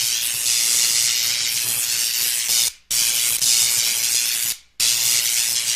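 Electrical buzzing hiss, a sound effect of electricity: a loud, steady high hiss over a faint low hum. It cuts out abruptly twice for a split second before resuming.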